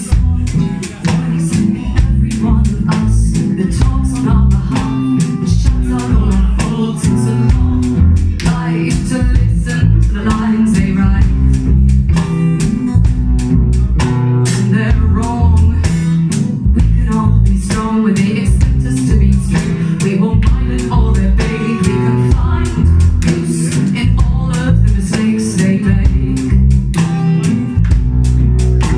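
A band playing a song: guitar, bass and a steady beat of drum hits, with singing.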